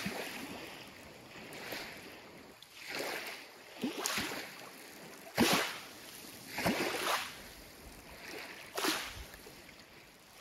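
Small waves lapping on a pebble lakeshore, each wavelet washing in with a short hiss and falling away, about every one to two seconds.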